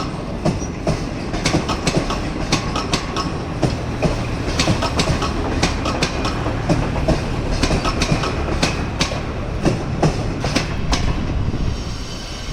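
Passenger train's coaches rolling past, wheels clattering over rail joints in a rapid uneven run of clicks over a steady rumble.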